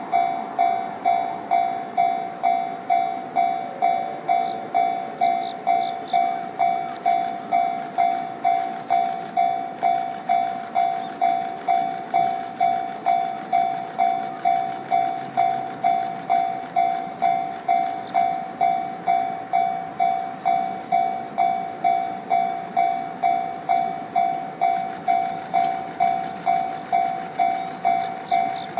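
Japanese level-crossing warning bell ringing without a break, about three rings every two seconds, over the noise of a passing train hauled by a D51 steam locomotive.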